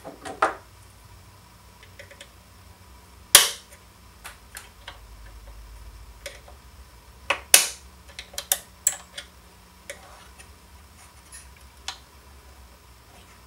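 Sharp metal clicks and clacks as a small screwdriver and loose metal parts knock against an open hard drive's head actuator and magnet assembly, the loudest two about three and a half and seven and a half seconds in.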